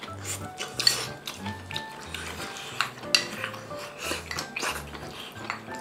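Cutlery clinking and knocking against dishes several times, over background music with a steady, repeating bass line.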